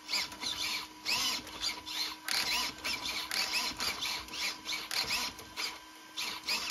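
Steering servo of an Axial SCX6 crawler whining in short bursts, two or three a second, as the front wheels are steered back and forth; the servo is powered directly from a 2S LiPo instead of the ESC's built-in BEC. Under it the ESC's cooling fan hums steadily and does not slow down, the sign that the ESC is no longer browning out.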